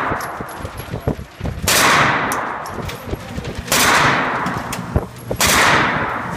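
A suppressed MP5 SD submachine gun firing three bursts about two seconds apart, each trailing off in a long echo off the indoor range's walls.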